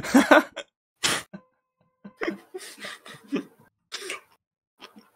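Two men laughing hard in short, breathy bursts, with a cough about a second in.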